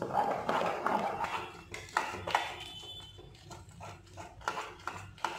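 A spoon stirring a thick, cooking milk-powder khoya mixture in a pan: a scraping stir at first, then irregular clicks and knocks of the spoon against the pan.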